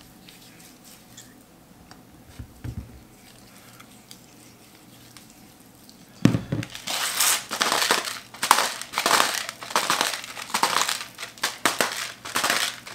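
Hand salt grinder grinding coarse pink salt crystals, with rapid crunching bursts about three a second, starting about halfway through after a soft thump. Before that, only faint soft handling sounds.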